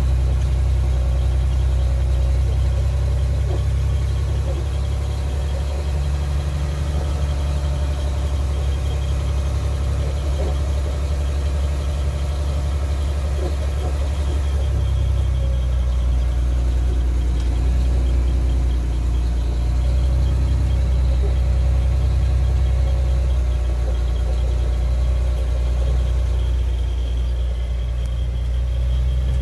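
Fire engine's diesel engine running while the truck drives along a dirt and gravel road, heard from inside the cab as a deep, steady drone.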